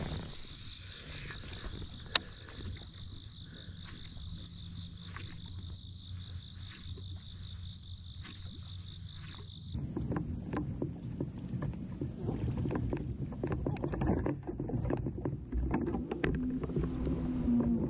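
Crickets chirping in a steady high trill, with a sharp click about two seconds in. About ten seconds in the sound changes to louder water sloshing and small knocks from the kayak moving on the water.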